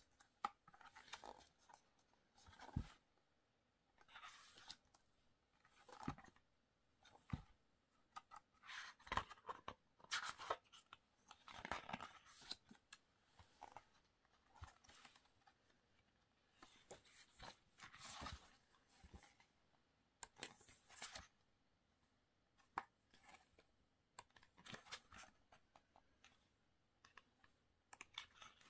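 Glossy photobook pages being turned and handled: quiet, repeated short paper swishes and rustles every second or two, with a few small clicks in between.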